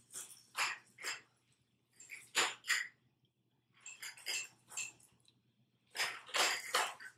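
Wet mouth sounds of someone eating fish with their hands: lip smacks and sucking clicks in four short clusters about two seconds apart.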